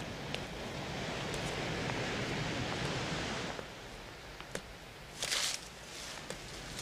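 Steady rush of ocean surf. It drops away after about three and a half seconds to a quieter room with a few light clicks and one short bright jingle about five seconds in.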